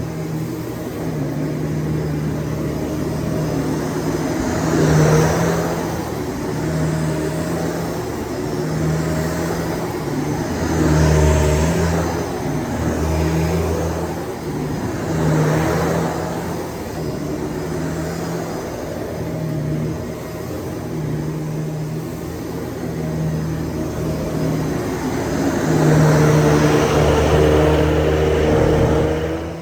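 Shark DuoClean PowerFins vacuum cleaner running, a steady motor hum with rushing air, swelling and easing every few seconds.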